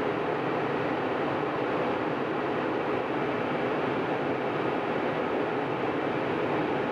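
Steady cabin roar of a jet airliner in cruise, engine and airflow noise heard from inside the cabin at a seat over the wing.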